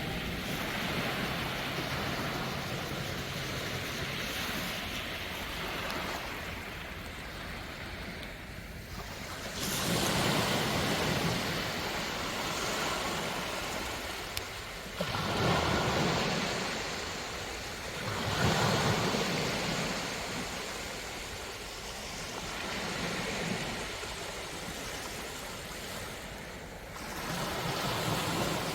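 Sea waves breaking and washing up on a sandy beach, the surf swelling louder every few seconds as each wave comes in.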